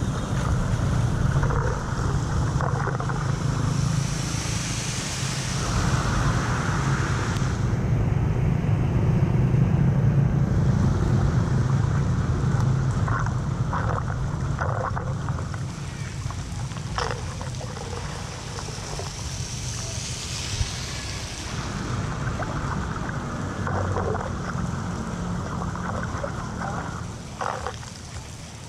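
Floodwater rushing steadily into a cleared street drain, with wind rumbling on the microphone and a few short knocks or scrapes in the second half.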